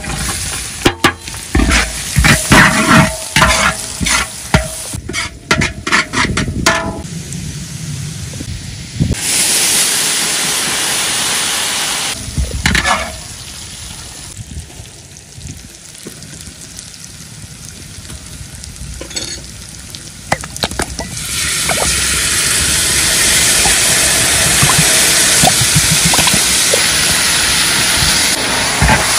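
Sliced onion frying in hot oil in a wok, sizzling loudly. A metal spatula scrapes and knocks against the wok in quick clicks during the first several seconds. The sizzle swells twice, about nine seconds in and again from about twenty-one seconds on.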